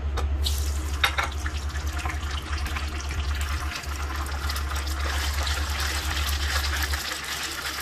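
Bakso meatballs frying in hot oil in a wok, a dense sizzling and crackling that sets in about half a second in as they go into the oil. A low hum runs underneath and stops about seven seconds in.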